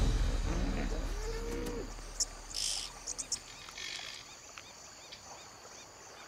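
A low rumble dies away over the first two seconds, then scattered bird chirps and insect calls, with a short trill about four seconds in.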